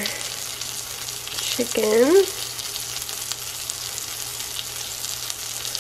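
Chicken breast sizzling steadily in oil in a nonstick frying pan, with small scattered pops.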